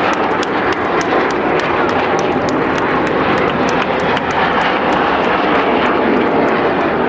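A formation of Aermacchi MB-339 jet trainers flying past, a steady loud rushing noise of their jet engines.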